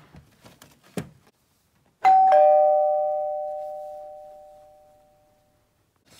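Toy dollhouse doorbell chiming a two-note ding-dong, high then low, about two seconds in, ringing on and fading over about three seconds. Before it there are light clicks and a sharp tap as the toys are handled.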